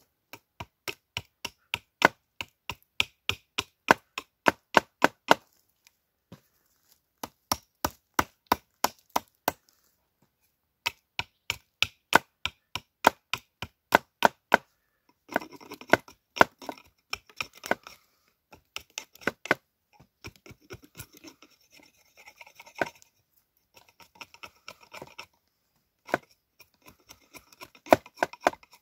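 Hatchet chopping into a wooden log to shape a mallet's handle: quick, light strokes about three a second, in runs of several seconds with short pauses between. In the second half the strokes are looser and come with a scraping, shaving sound.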